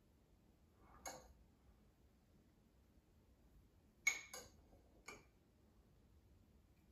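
A few light clinks of a metal measuring spoon against a ceramic mug as water is scooped out: one about a second in, then three more in quick succession around four to five seconds in, over near silence.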